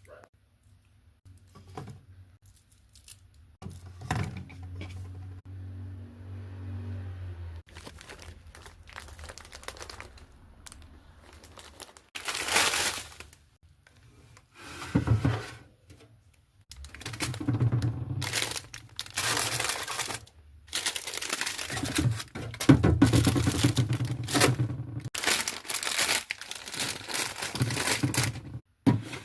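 Plastic snack wrappers and packaging crinkling and rustling as they are handled, in irregular bursts that grow busier and louder in the second half.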